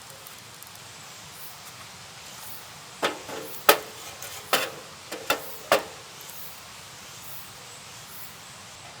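About six sharp knocks in quick succession around the middle, over a faint steady background.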